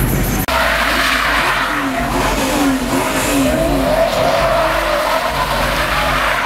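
A Chevrolet Camaro doing donuts: its rear tyres spin and squeal in a wavering whine over the engine running hard.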